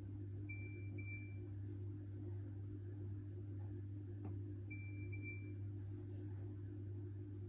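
Hoover H-Wash 600 washing machine's electronic beeper giving a pair of short high beeps about a second in, and another pair about five seconds in, over a steady low hum.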